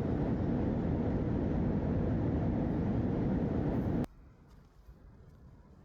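Steady background noise, heaviest in the low end, that cuts off abruptly about four seconds in.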